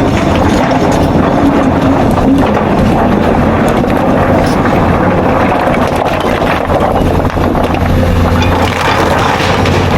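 Excavator's diesel engine running steadily and loudly, with a constant low hum under a dense mechanical noise.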